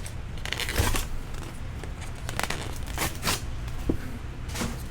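Trading-card packaging being torn open and crinkled by hand: several short tearing and crinkling sounds over a low steady hum.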